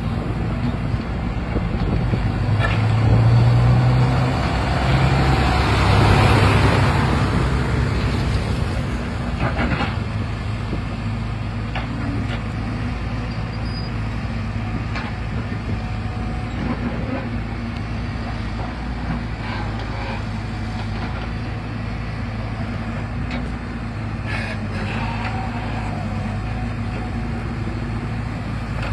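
Excavator's diesel engine running steadily, revving higher for several seconds near the start as it works under load. A few short knocks sound later on.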